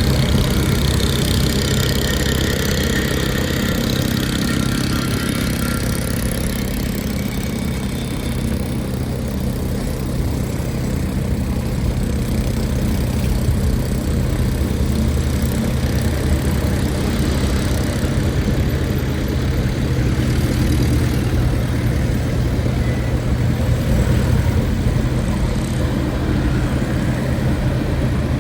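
City street traffic: vehicle engines running, with a steady low engine hum under the noise of passing traffic.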